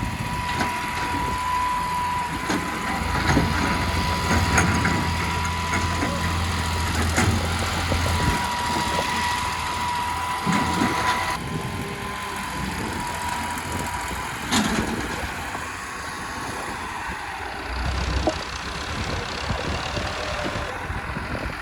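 Excavator's diesel engine running with a steady high whine that stops about two-thirds of the way through, and a few sharp knocks.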